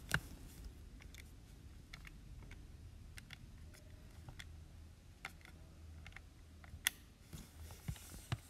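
Calculator keys being pressed one after another, faint, irregular clicks as a sum is keyed in.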